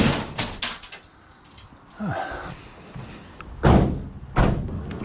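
Scrap steel being loaded into a van: several loud bangs, one at the start and two more close together near the end.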